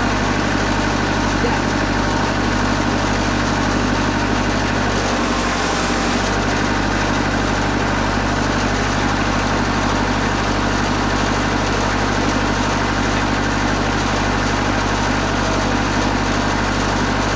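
Wood-Mizer LT40 Super Hydraulic bandsaw mill running steadily, its engine droning with a constant hiss over it, briefly changing in tone about five seconds in.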